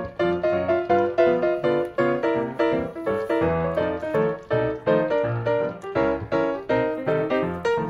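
Background piano music: a steady run of single notes at an even pace, each struck and fading.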